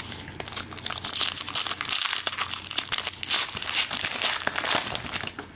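Wrapper of a trading-card pack crinkling and tearing as it is opened, a dense run of crackles that stops shortly before the end.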